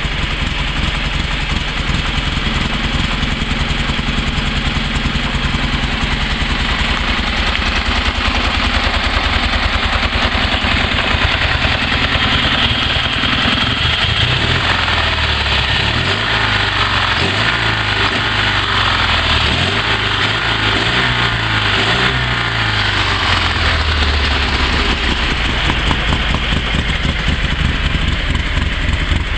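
Panhard 24 CT's air-cooled flat-twin engine running: steady idle at first, then revved up and down several times from about halfway through, before settling back to idle near the end.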